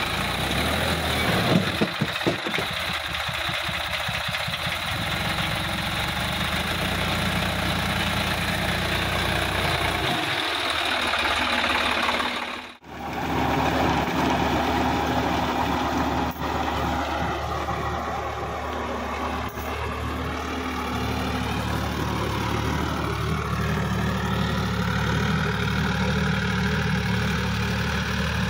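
Sonalika DI-50 RX tractor's diesel engine running steadily under load while its rear rotary tiller churns dry soil. The sound briefly drops out a little under halfway through, then resumes.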